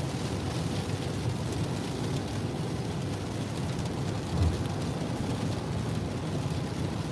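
Steady low rumble and hiss heard from inside a car's cabin driving on a soaked highway in heavy rain: tyres on the wet road and rain on the car. A single low thump a little over four seconds in.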